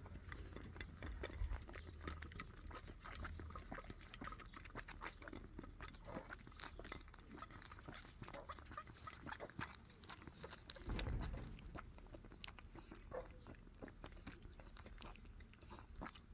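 A lamb sucking and smacking on a milk-bottle nipple in faint, irregular clicks, drawing the last of the milk from a nearly empty bottle. A brief louder low noise comes about eleven seconds in.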